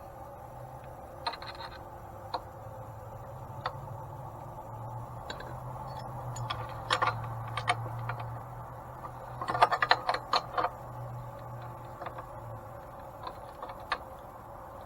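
Scattered metallic clicks and taps of screws, bolts and hand tools being handled while fitting hardware, with a quick run of clicks about ten seconds in, over a steady low hum.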